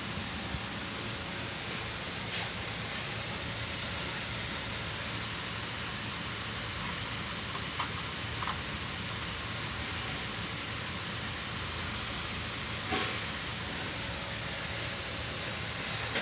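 A steady hiss, with a few faint light clicks or taps scattered through it.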